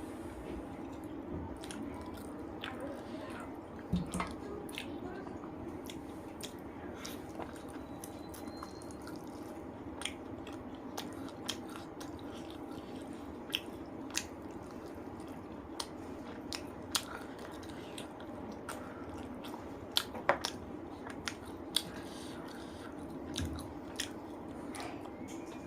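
Close-miked chewing and wet mouth sounds of someone eating rice and spicy chicken curry, with scattered sharp smacks and clicks over a steady low background hum.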